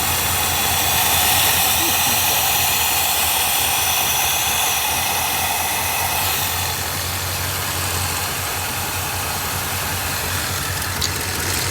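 Ford 428 V8 of a 1966 Galaxie 7 Litre idling rough, with a strong steady hiss over the engine note that eases slightly a little past halfway. The owner hears a big exhaust leak and a smog (air injection) pump that sounds about to disintegrate.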